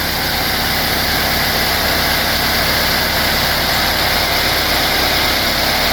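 Nissan QG18DE 1.8-litre four-cylinder engine idling steadily, running fine with no shaking and no misfire on its freshly replaced head gasket.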